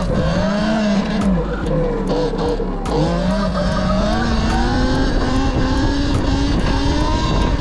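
Talaria XXX electric dirt bike's motor whining under throttle, its pitch rising and falling again and again as the rider accelerates and eases off, over steady rumble from the ride.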